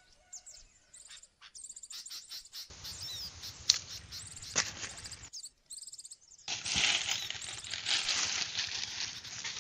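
Dry leaves rustling and crackling, with a few sharp snaps, in short pieces broken by cuts; the rustling grows louder and denser about two-thirds of the way in.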